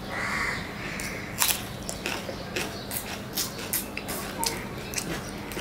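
Close-miked eating sounds: irregular wet chewing and lip-smacking clicks from a person eating rice and curry.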